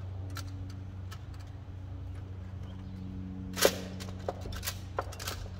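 Ford C-Max lithium battery cells with plastic spacers being set down and pushed together on a wooden board: one sharp clack about three and a half seconds in, then a few lighter clicks, over a steady low hum.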